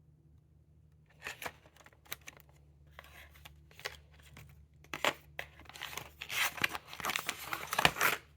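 Packaging being torn open and crinkled by hand: a run of short rips and rustles that starts about a second in, grows louder, and cuts off suddenly.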